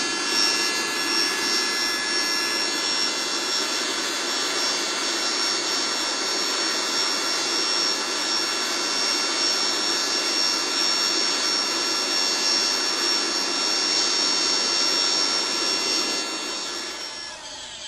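Charcoal furnace under forced draught from a small airbed-pump fan blower: a steady rush of air with a high, even whine, fading out near the end.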